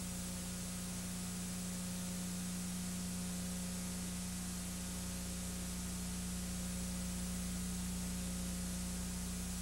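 Steady hiss with a low electrical hum and nothing else: the empty soundtrack of an old home-movie transfer.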